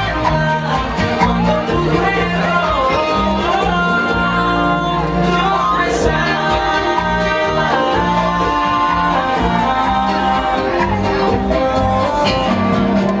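Bachata music with plucked guitar lines over a steady beat, and a singing voice.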